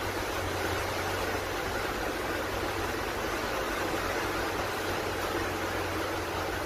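Steady rush and wash of water as a vehicle drives through ankle-deep floodwater, with a low engine hum underneath.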